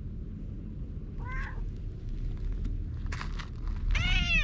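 Tabby-and-white stray cat meowing twice: a short, faint meow about a second in and a louder one near the end. A steady low rumble runs underneath.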